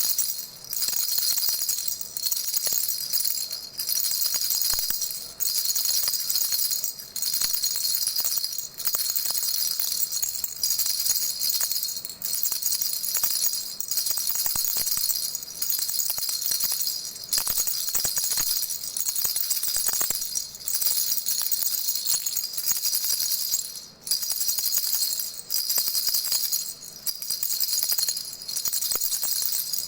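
Baby rattle being shaken steadily, a bright metallic jingling with a short break about every one and a half to two seconds.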